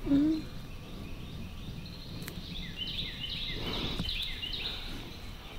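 Birds chirping: a quick run of short, high, falling chirps starting a little before halfway and lasting a couple of seconds, over a quiet background with a brief soft rustle near the chirps.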